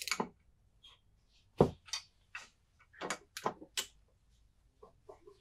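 Irregular metallic clicks and clinks of a ratchet with a 7/32 socket being fitted to and turned on the set screws of a mud motor's lower drive sprocket, with one heavier knock about a second and a half in.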